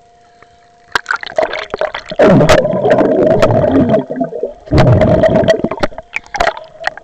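Lake water splashing and gurgling around a camera as it goes under the surface. Scattered splashes and clicks start about a second in, then come two loud stretches of muffled bubbling and sloshing, one lasting nearly two seconds and a shorter one near the end.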